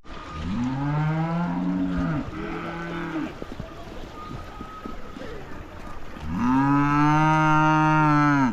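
Cow mooing: two long, low calls, the second louder and cut off suddenly.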